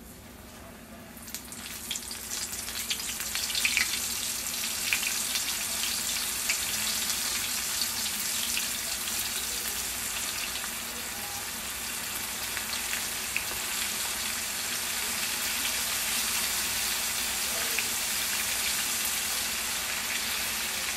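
Raw chicken strips lowered one by one into hot oil in a pan, the oil sizzling and crackling as each goes in. The sizzle starts about a second in, pops most sharply in the first few seconds, then settles into a steady frying hiss.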